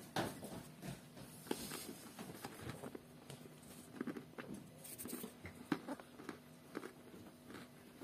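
Faint, scattered small clicks and rustles over a low steady hum: quiet room tone.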